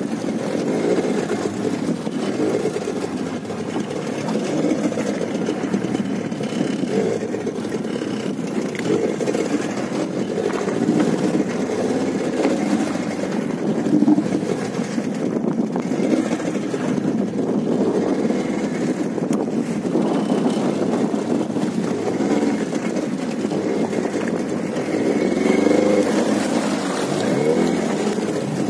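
A boat's engine running steadily, heard from on board.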